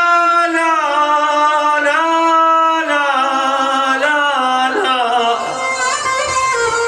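Solo singing of an Arabic-style melody: long held notes that slide down from one pitch to the next, with a wavering, ornamented passage near the end.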